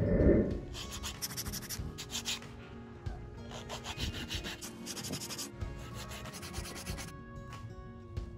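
Hand sanding of a small piece of wood with a sanding block: quick back-and-forth rasping strokes in three spells, after a loud thump right at the start.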